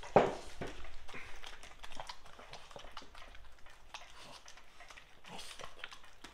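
Two dogs, a Boston terrier and a Keeshond, chewing and licking up cake: a run of small wet clicks and lip smacks. A brief loud sound comes right at the start.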